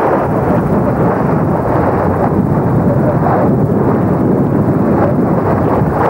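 Strong storm wind blowing hard across the microphone: a loud, steady rush of noise.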